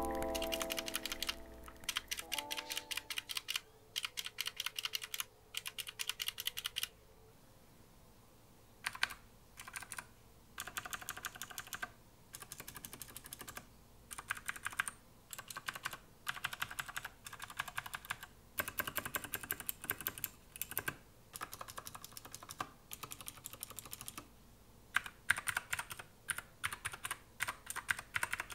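Typing on a Keychron K2 mechanical keyboard with clicky Gateron Blue switches: quick bursts of keystrokes separated by short pauses.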